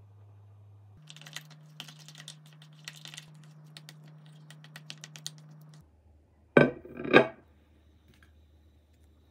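Light, rapid, irregular clicks of typing on a keyboard for several seconds. These are followed by two loud, sharp knocks about half a second apart.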